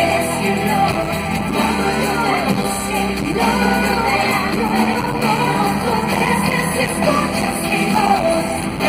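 Live pop-rock concert music: women singing into microphones over a full band, heard from among the audience in the hall.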